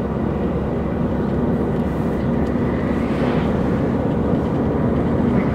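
Steady in-cabin road noise of a Ford Fiesta driving along: a low engine hum under tyre and wind noise, heard from inside the car.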